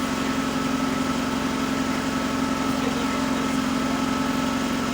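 Steady, unchanging mechanical hum of a running motor or engine.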